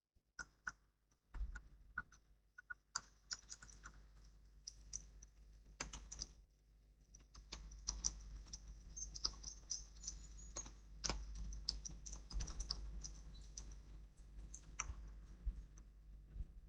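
Raindrops tapping irregularly, many small sharp drips close by, over a low steady rumble.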